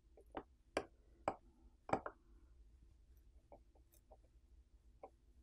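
Faint, sharp clicks and taps of a metal pry pick against a smartphone's metal mid-frame and flex cables as the cables are peeled up: about five crisp clicks in the first two seconds, then a few softer ticks.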